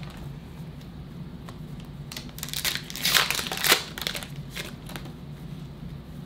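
Crinkling of foil trading-card pack wrappers being handled, in a cluster of sharp bursts about two to four seconds in, with fainter rustles later.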